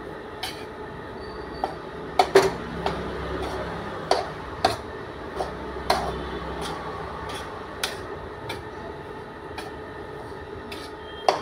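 A metal spatula stirring and scraping gram flour (besan) as it roasts in a small metal kadhai, with irregular sharp clinks and knocks of the spatula against the pan, about one every half second to second, over a steady hum.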